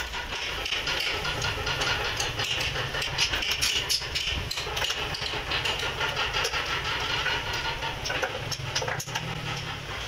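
Small wooden blocks clacking and knocking against one another as they are handled and stacked, with many short irregular clicks over a steady machine hum.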